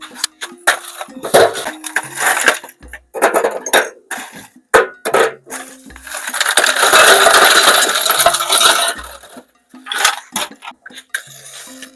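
Clinks and knocks of metal pots and dishes being handled, with a denser stretch of clattering noise for about three seconds in the middle, over soft background music with a repeating bass line.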